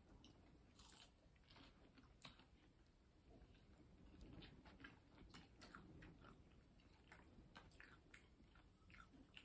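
Faint chewing and crunching of curly fries, with small crisp clicks scattered throughout. A brief high squeak sounds near the end.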